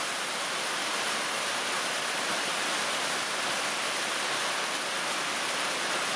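Rain and hail falling, a steady even hiss.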